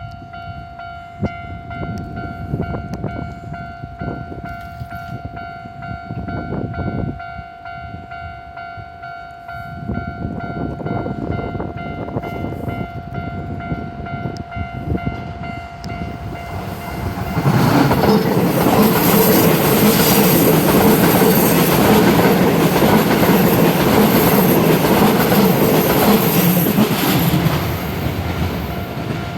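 Level-crossing warning signal sounding steadily, then a Keisei 3600 series electric train runs over the crossing a little past halfway, its wheels and running gear loud for about ten seconds before easing off near the end.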